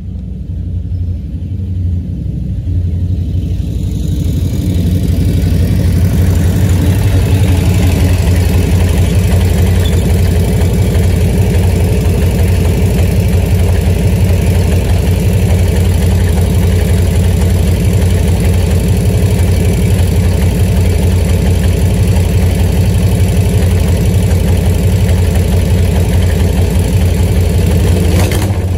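1940 Harley-Davidson UL's flathead V-twin engine running. It grows louder over the first few seconds as the bike rides up, then runs steadily at idle.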